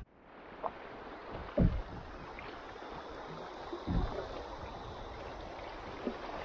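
Shallow river water rushing over rocks around a kayak, with paddle strokes splashing; the sound fades in over the first second. Two dull knocks stand out, about a second and a half in and again about four seconds in.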